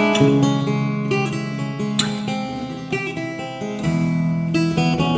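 Background music: acoustic guitar, with notes picked and strummed.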